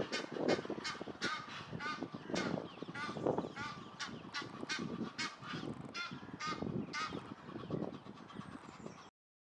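Egyptian geese calling to each other, a rapid run of harsh honks about two or three a second, as pairs squabble. The calling cuts off suddenly near the end.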